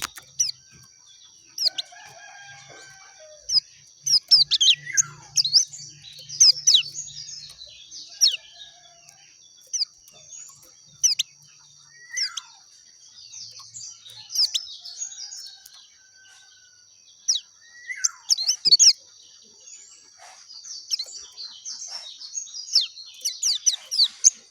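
Pleci dakun white-eye giving sharp, high chirps in quick clusters, over a steady high-pitched hiss. A few lower, falling calls come in now and then.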